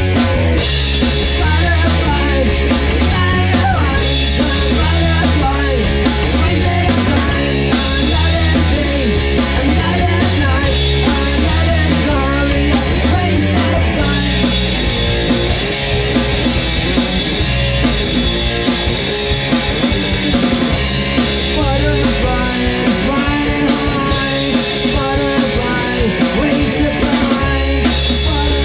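A rock band's recorded song playing loudly and continuously, with a heavy steady bass line and drums.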